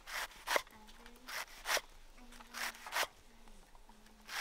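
Knife slicing a banana blossom into thin shreds: crisp scraping cuts in pairs, about one pair every second and a half.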